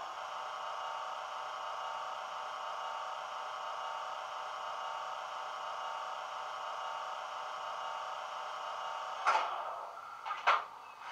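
Coastal DCC sound decoder in a model Class 20 diesel locomotive playing the engine's cold-start sequence through the model's small speaker: a steady whirring made of many pitched tones for about nine seconds, then two sharp clicks, after which the sound drops quieter.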